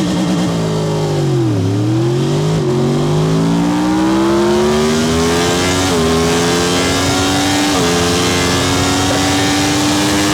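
Superbike racing motorcycle engine launching off the start line: the revs are held steady, sag as the clutch bites about a second and a half in, then climb hard through the gears with upshifts roughly every two to three seconds.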